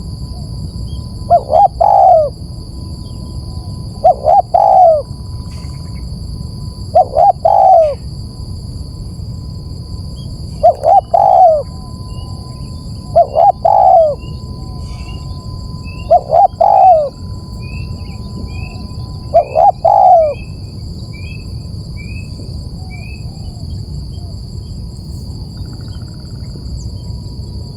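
Spotted dove cooing: seven calls of about three low notes each, roughly three seconds apart, stopping about two-thirds of the way through. A faint steady whine and hiss lie underneath.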